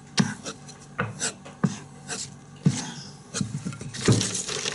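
Fallkniven F1 knife blade being drawn over a leather strop loaded with white honing compound. It makes a series of short scraping strokes, roughly one every half second, as the edge is polished.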